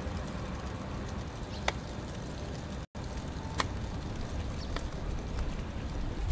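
Steady low-pitched background noise with a few sharp clicks scattered through it; the sound cuts out for an instant about three seconds in.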